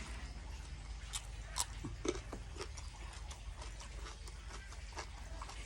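A person eating, chewing and smacking with a string of short, wet mouth clicks at an irregular pace.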